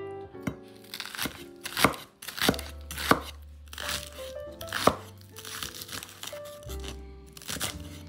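Kitchen knife chopping green onions on a wooden cutting board: a series of sharp single chops, about one every half second to second through the first five seconds, then one more near the end, over background music.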